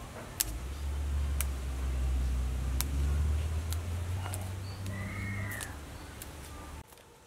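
Water spinach stems snapped by hand, a sharp crack every second or so, over a steady low rumble. A short rising-and-falling animal call comes about five seconds in, and the sound drops to a faint hush near the end.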